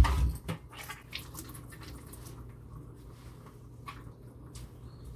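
Water dripping and squishing as hands squeeze water out of a wet puppy's coat and ears in a grooming tub, with scattered small drips and ticks. A dull knock sounds at the very start.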